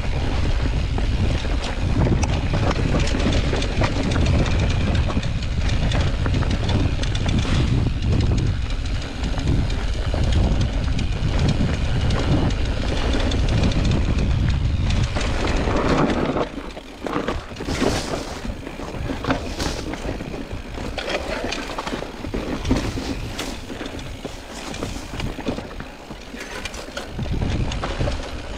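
Wind buffeting the microphone of a camera on a moving mountain bike, with the bike rattling over a rough trail. About 16 seconds in the wind rumble drops away, and the clatter and sharp knocks of the bike over rocks come through more plainly.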